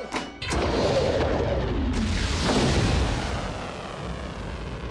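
Animated-film sound effect of a rocket missile launching: two sharp clicks, then a loud rushing rocket roar that swells about two seconds in and slowly fades as the missile climbs away.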